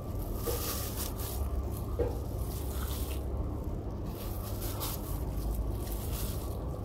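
Plastic-gloved hand rustling and crinkling as it presses a handful of fresh coriander leaves into a glass blender jar, in irregular bursts over a steady low hum.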